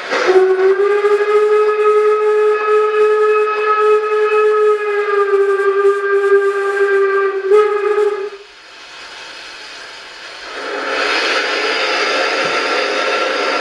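Sound decoder in an LGB model of the Harz narrow-gauge steam locomotive 99 222 playing a long steam whistle through the model's loudspeaker, one held note of about eight seconds that rises slightly as it opens. After a quieter gap, a loud, steady steam hiss starts about eleven seconds in.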